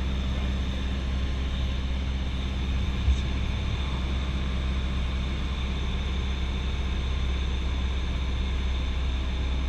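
Cessna 172SP's four-cylinder Lycoming engine and propeller droning steadily, heard inside the cockpit in flight, with a brief knock about three seconds in.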